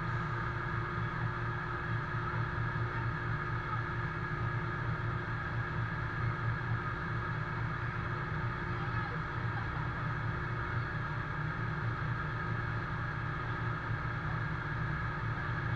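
Fire engine's diesel engine running its water pump at constant revs: a steady drone with a steady higher tone above it, heard close to the truck.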